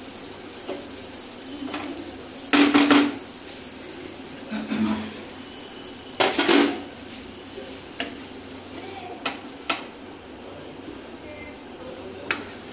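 Wooden spatula stirring and scraping through thick yogurt gravy in a non-stick kadai, with a few loud strokes in the first half. Light knocks and clinks follow as paneer pieces are lifted onto a plate.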